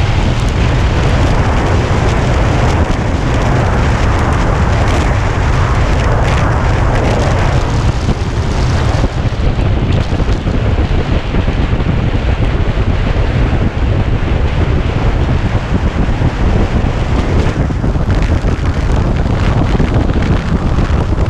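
Steady wind rush buffeting the microphone of a Kawasaki Ninja 250 motorcycle riding at road speed, a low rumble with hiss above it that drowns out the engine. The higher hiss eases about nine seconds in.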